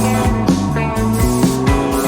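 Background rock music with guitar and drums, a steady beat.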